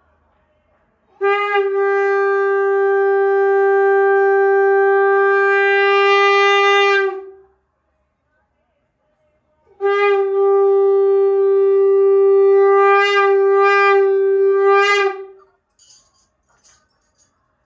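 Conch shell (shankha) blown in two long, steady blasts, each about five to six seconds, the second wavering briefly a couple of times near its end. A few faint clinks follow near the end.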